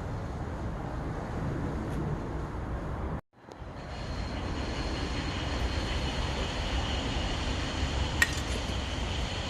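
Steady low rumble of outdoor city background noise, cut off for an instant about three seconds in. After the cut a faint high steady tone sits over the rumble, and a single sharp click comes near the end.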